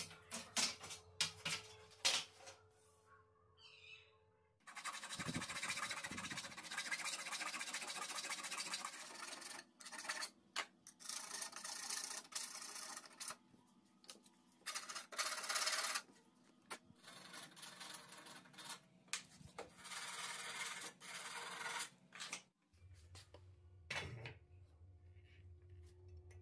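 Metal base plate of a circular saw sliding along an aluminium angle guide on plywood, rubbing and scraping in several strokes with short pauses, the saw not running. A few light knocks of handling come before the first stroke.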